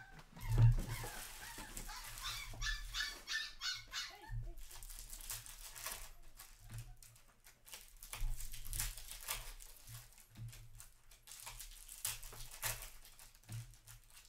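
A Cavapoo whining in a quick run of high, repeated cries from about two to four seconds in, which the owner puts down to separation anxiety. Under and after it come the rustle and clicks of hockey card packs and cards being handled on the counter.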